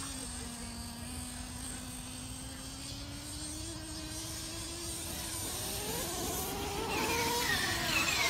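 Traxxas RC monster truck's motor whining, low and steady at first, then climbing in pitch and growing louder over the last few seconds as the truck speeds up and comes near.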